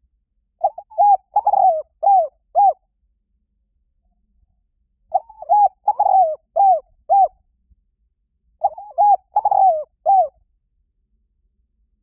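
Spotted dove cooing: three phrases of five or six short, arched coo notes each, a couple of seconds apart.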